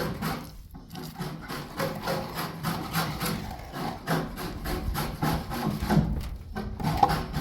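Repeated scraping strokes, one after another.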